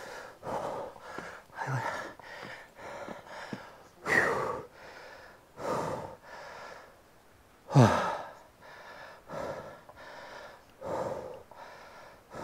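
A man breathing hard and fast, gasping breaths about every half-second to second, out of breath from climbing a steep trail. About eight seconds in, one louder breath comes out as a voiced exhale falling in pitch.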